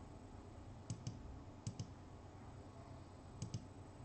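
Faint computer mouse clicks: three quick double clicks, about a second in, near the middle and near the end.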